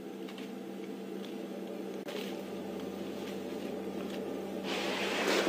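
A steady low hum, then rustling and scraping through the bushes starting near the end as a young African bull elephant feeds on the foliage.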